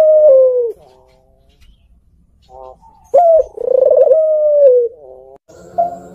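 Puter pelung Barbary doves cooing: the end of one call, a short pause, then a long call about three seconds in that opens rough and throaty and holds a long note that slides down. Near the end another coo begins over a steady low hum.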